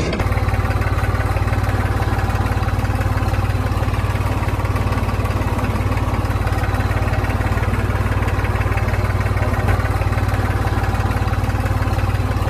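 Tractor engine sound running steadily at an even speed, a low continuous engine note with no revving. It is an engine sound track laid over toy tractors, not a noise the die-cast toys make themselves.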